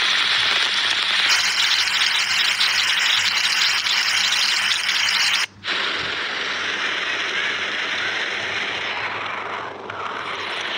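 Heavy rain pouring down and splashing on muddy ground, a dense steady hiss of countless drops. It breaks off for a moment about five and a half seconds in, then carries on a little quieter.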